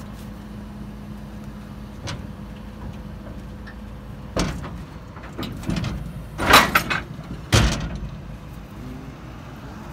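Several clunks and knocks as a blown-out trailer wheel and tire is worked off its hub, the loudest about six and a half and seven and a half seconds in. A vehicle engine idles with a steady hum underneath.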